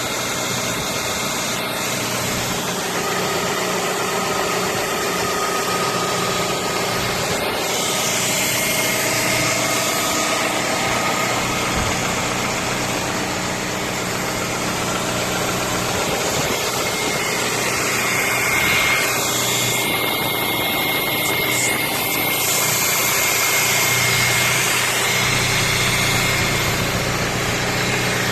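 Audi A3 8P's 1.6 BSE eight-valve petrol engine idling steadily, smooth and firm with no misfires.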